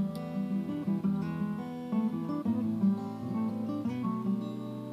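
Background music: acoustic guitar, plucked and strummed.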